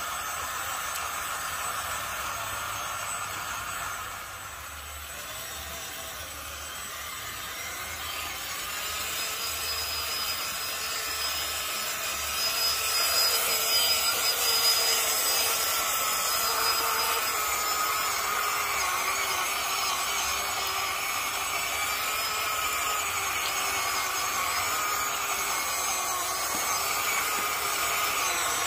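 Electric motor and gearbox of a WPL B16 six-wheel-drive RC truck whining as it drives through mud, the whine drifting in pitch with the throttle. It dips a few seconds in and grows louder from about halfway through.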